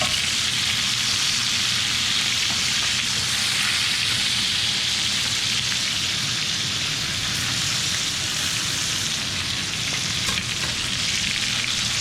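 Short ribs searing in hot oil in a pan over high heat, a steady loud sizzle with a few faint clicks.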